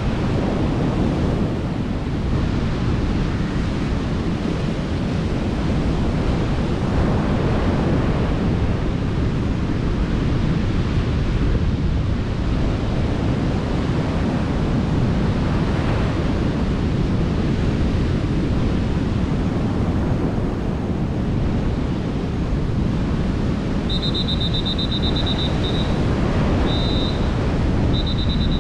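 Strong wind buffeting the microphone over the steady rush of heavy surf breaking on the shore. Near the end a shrill, trilling high tone sounds three times in quick runs.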